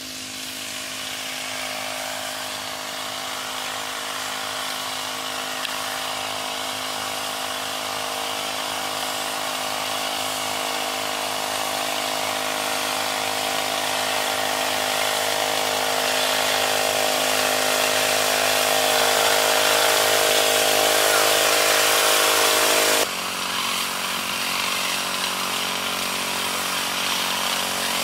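Motorized backpack crop sprayer running steadily as it sprays, with a steady motor note over a hiss. It grows slowly louder as it comes closer, then drops abruptly near the end.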